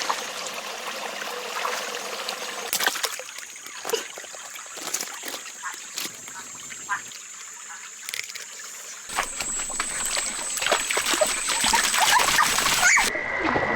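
Water trickling and splashing, with many small splashes; the sound changes abruptly a few times as it cuts between takes.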